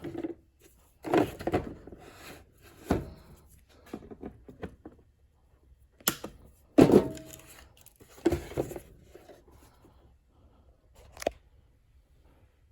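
Handling a sealed tool package while trying to get it open: a string of knocks, clicks and rustles, loudest about two-thirds of the way in, where one knock rings briefly.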